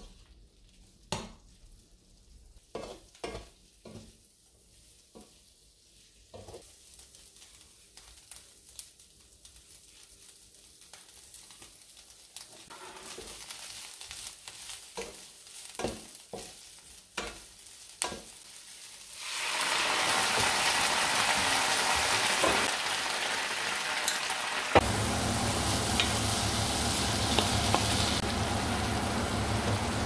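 Sliced white cabbage frying in a non-stick pan, stirred and scraped with a wooden spatula. Scattered knocks and scrapes come first. The sizzle builds and turns loud and steady about two-thirds of the way in, and a low hum joins near the end.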